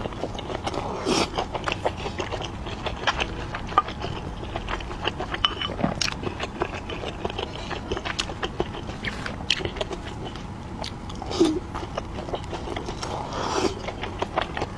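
Close-miked chewing of dumplings, with many small wet smacks and sharp mouth clicks.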